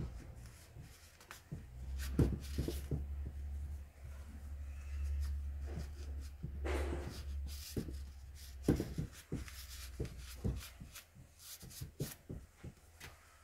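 Hands and a rag working around the shaft in the front aluminium cover of a K750 motorcycle engine: cloth rubbing, with scattered light clicks and knocks that grow more frequent in the second half.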